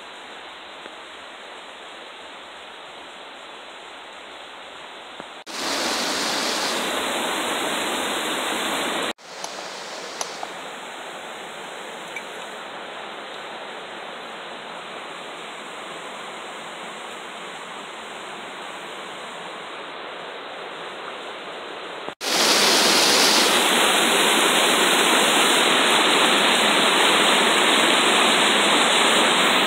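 Steady rushing of a rocky river's water over stone slabs. It jumps up and down in loudness at cuts and is loudest over the last several seconds, where water pours in a small cascade over a rock ledge.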